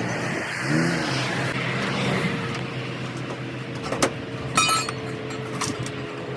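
Workshop noise: a steady machine hum with a few sharp metal knocks, one of them ringing briefly about four and a half seconds in.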